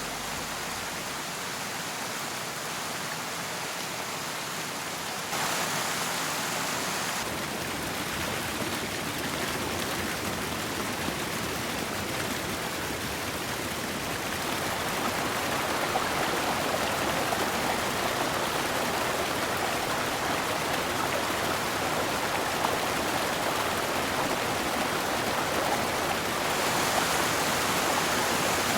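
Steady rush of flowing water that shifts abruptly a few times and gets louder about halfway through.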